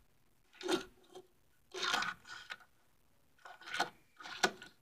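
Handling noise from a die-cast toy car and a plastic storage case: a few short, soft clicks and rattles as the car is turned in the hand and moved about.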